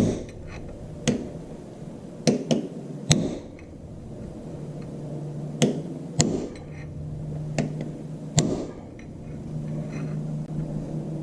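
Hammer blows on a punch, bending a locking tab down on a tractor's power take-off: about nine sharp metal strikes, irregularly spaced, each ringing briefly. A faint low hum runs underneath from about four seconds in.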